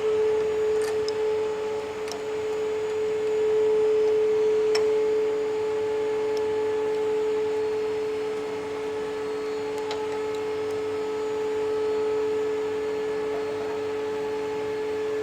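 Two-post car lift's electric hydraulic power unit running with a steady, even whine, with a few faint clicks from work on the lift.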